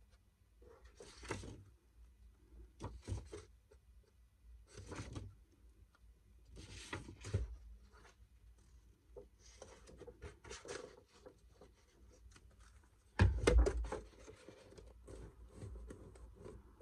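Sheet of paper rustling and rubbing in short irregular bursts as it is handled and glued, with one louder thump and rustle about thirteen seconds in, then hands pressing and smoothing the paper onto a cardboard box.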